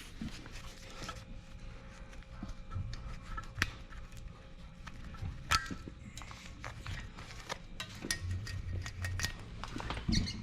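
Scattered light clicks and knocks of hands working on an electric bike's frame and wiring, with a few sharper knocks.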